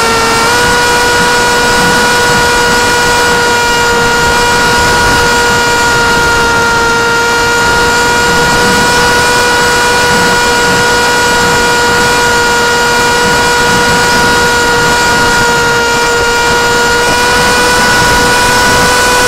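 Small brushless outrunner motor (Sunnysky 2204 2300kv) spinning a 6045 propeller on a foam flying wing, heard from a camera mounted on the airframe: a steady whine at cruise throttle, stepping up slightly about half a second in and again near the end, over a constant rush of wind.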